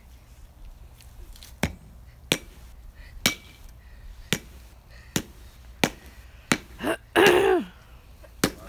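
Baseball bat striking a hard, thick-walled pumpkin on grass, about nine sharp hits spaced under a second apart, the pumpkin too tough to split. A short cry falling in pitch breaks in about seven seconds in.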